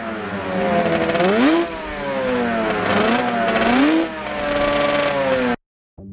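An engine revving several times, its pitch rising and falling with each blip of the throttle, then cutting off abruptly near the end.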